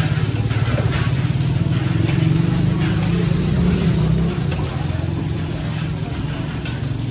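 A motor vehicle engine running close by, a steady low drone that swells over the first four seconds and then drops back. Over it come a few sharp clicks and scrapes of a metal spatula on a large flat iron griddle where kababs are frying.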